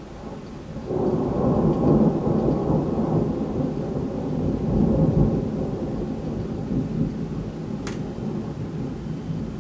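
Rolling thunder: a deep rumble that builds, breaks loudly about a second in, swells again around five seconds, then slowly dies away. A single brief click near the end.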